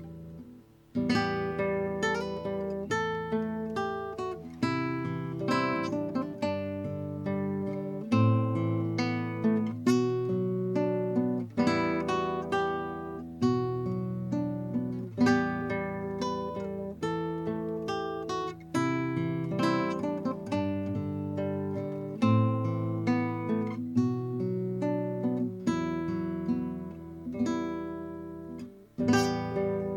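Kodaira AST 100S Japanese classical guitar being fingerpicked in a flowing piece of arpeggiated chords, its nylon strings ringing on. The playing starts about a second in after a brief pause, with another short break near the end.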